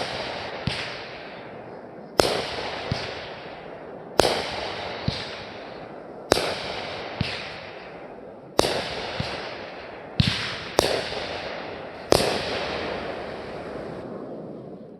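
Fireworks going off in a steady series: about seven sharp bangs roughly two seconds apart. Each bang is followed by a smaller pop and a long rumbling echo that dies away near the end.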